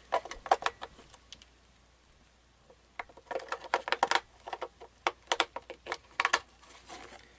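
Batteries and plastic clicking and rattling as they are fitted into the battery compartment under a Big Mouth Billy Bass's plastic base: a run of sharp clicks in the first second, a quiet gap, then a denser run of clicks and taps.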